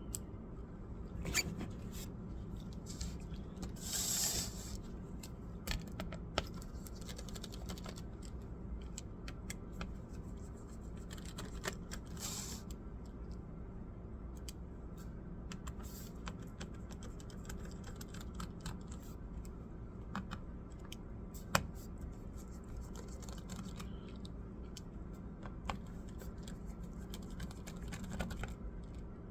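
Scattered small clicks and taps of hands and tools working on a laptop, over a steady low hum, with two brief scraping or rustling sounds about 4 and 12 seconds in.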